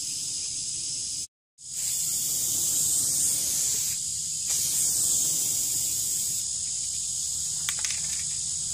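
Aerosol spray can hissing as it sprays onto a sheet-metal ridge-cap panel, starting about two seconds in, with a short dip near the middle.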